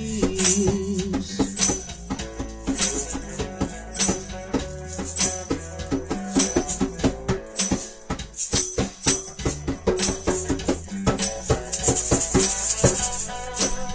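Informal live band jam: a hand drum and a rattling shaker beat steadily, about two strokes a second, under held electric guitar and bass notes.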